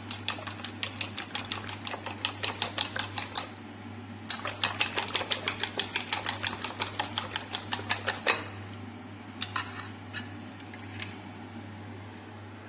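Metal fork beating eggs in a ceramic bowl: rapid clicking of the fork against the bowl, several strikes a second. It pauses briefly about three and a half seconds in, runs on until about eight seconds in, and ends in a few scattered taps, over a steady low hum.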